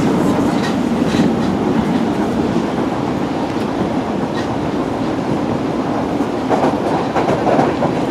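Osaka Municipal Subway 20 series train running, heard from inside the car: a steady rumble of wheels on rail, with a few clicks about a second in and again near the middle.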